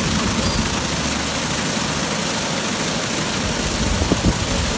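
WashTec SoftWash rollover car wash near the end of its brush pass: red-and-black foam brushes spinning against the car, giving a steady rushing noise over the low hum of the machine's motors. Two short knocks come about four seconds in.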